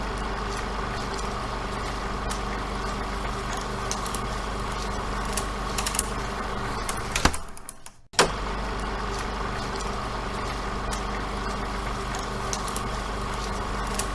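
A steady mechanical hum of several held tones over a faint hiss, with a few faint clicks. It fades out and drops away briefly about seven to eight seconds in, then resumes unchanged.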